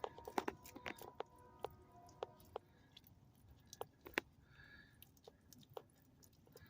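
Faint, irregular crackling and ticking as hot water is dribbled onto the corroded battery post and cable terminal, dissolving the corrosion.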